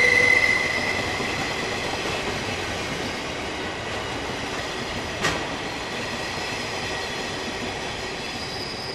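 Freight train of empty flat wagons rolling past close by: a steady rushing rumble of steel wheels on rail with a faint high wheel squeal, slowly getting quieter. A single sharp click about five seconds in.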